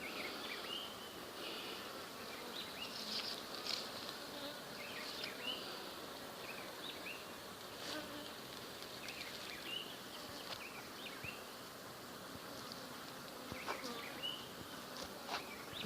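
A colony of Africanized honeybees buzzing around their exposed wild hive: a steady, fairly faint hum of many bees, with short high chirps scattered through it.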